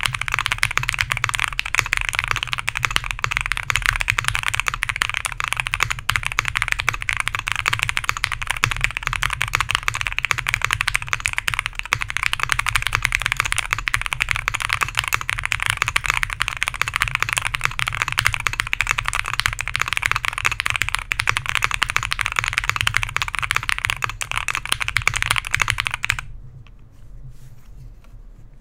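Fast typing on a custom Mr. Suit winkeyless tenkeyless mechanical keyboard with lubed and filmed Alpaca linear switches on a POM plate, gasket-mounted with PE and plate foam: a dense, continuous clatter of key strokes. The typing stops a couple of seconds before the end, leaving only a few faint clicks.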